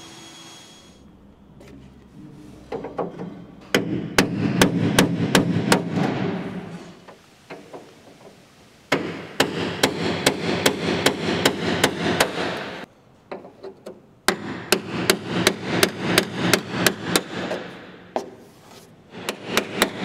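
Hammer tapping on sheet-metal car bodywork: runs of quick, even blows, about three a second, broken by short pauses.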